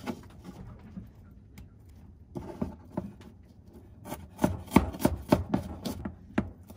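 Kitchen knife chopping an onion on a plastic cutting board: a few scattered cuts at first, then a quicker run of chops, about four a second, in the second half.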